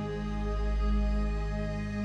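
Calm background music of long, held notes over steady low tones.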